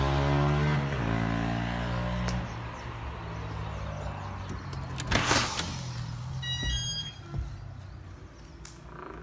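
A motor vehicle's engine running close by, its pitch sagging slightly as it fades away over the first two seconds or so. Then a front door is worked: a loud rattle from the handle and lock about five seconds in, a quick run of short high tones, and a thud as the door swings open.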